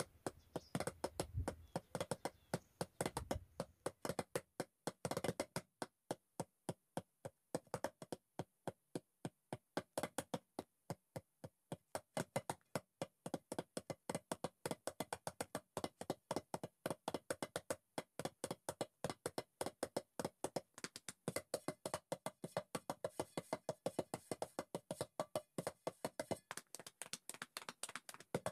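Quiet percussive background music: a steady run of short wood-block-like clicks, about four a second.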